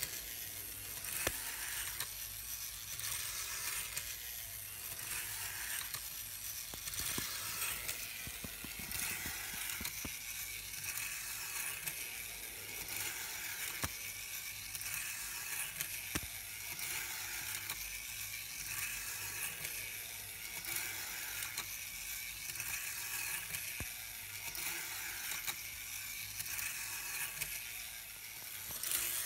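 N-gauge model bus powered by a small model-railway motor unit, running laps around a tiny loop of metal track. It makes a steady high-pitched whirring hiss from the motor and the wheels on the rails, with occasional sharp clicks.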